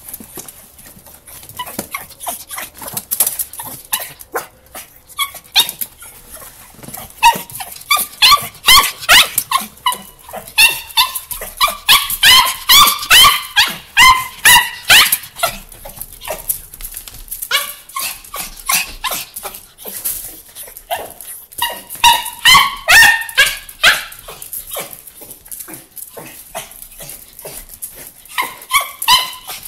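Miniature pinscher excitedly greeting its owner with runs of high-pitched yelping and whining, heaviest from about 7 to 16 seconds in and again around 22 to 24 seconds in, over many short clicks and knocks.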